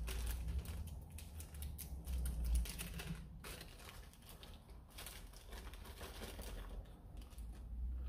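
A small plastic bag of foam blaster darts being handled and emptied: light plastic crinkling and an irregular run of small clicks and taps as the darts are tipped out onto the desk.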